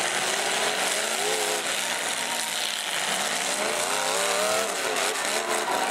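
Full-size demolition derby cars' engines revving up and down again and again, over a steady wash of engine and arena noise.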